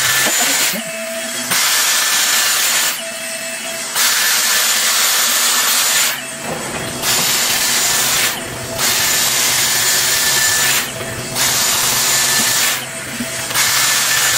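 Dyson Airstraight in wet-hair mode blowing hot air: a loud, steady hiss of fast airflow with a thin high fan whine. The airflow drops back for about a second six times, as the straightener pauses between passes and starts again when it touches the hair.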